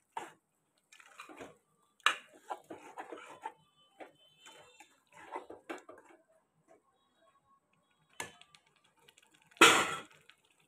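A spoon stirring and scraping chunks of meat in thick spice paste in a metal pot, with wet squelches and scattered clinks against the pot; the meat is being braised in spices without any added water. A loud sharp clatter comes near the end.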